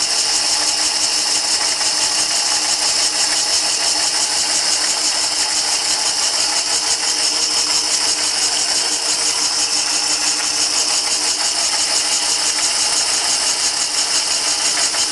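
Cylinder boring bar running steadily, its motor whirring with a fast, even pulsing as the cutter turns in the bore of a two-stroke cylinder.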